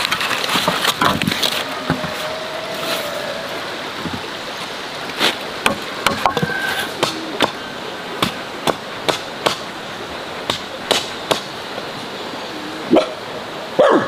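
Bamboo stakes being knocked into the pond bank: sharp, irregular wooden knocks from about five seconds in, roughly one or two a second, over a steady rushing noise.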